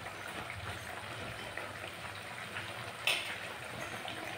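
Curry gravy boiling on high heat in an iron kadai, a steady bubbling and crackling, with one sharp click about three seconds in.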